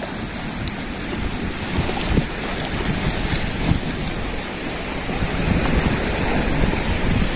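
Small waves washing in on a shallow beach, with wind buffeting the microphone and adding a low rumble.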